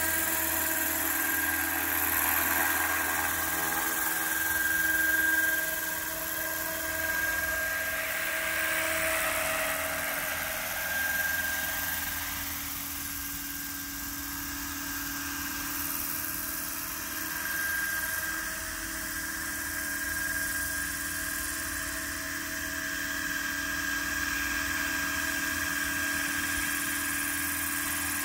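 Radio-controlled scale Bell 429 helicopter in slow flight: a steady whine from its drive over the rush of its symmetrical-airfoil scale rotor blades. It fades as the helicopter moves away around the middle and grows louder again as it comes back.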